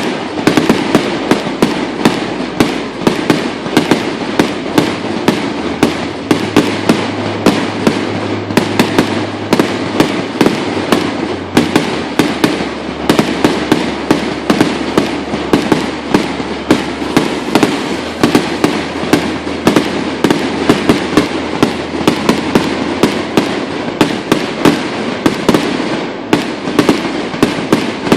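Fireworks going off in rapid succession: sharp bangs, several a second, over a continuous crackle.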